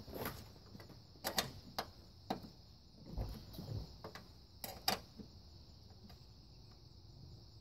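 Combination wrench clinking on the battery hold-down bracket's nut as it is turned and re-set, a handful of sharp metallic clicks spaced unevenly, with a few dull knocks near the middle. A steady high insect hiss runs underneath.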